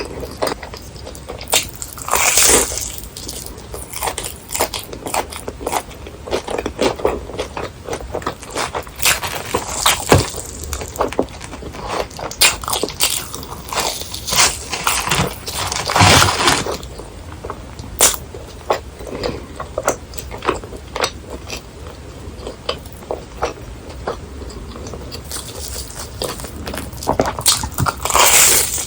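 A person biting and chewing crispy fried food close to the microphone: irregular crackling crunches, with a few louder crunching bites about 2, 10, 16 and 28 seconds in.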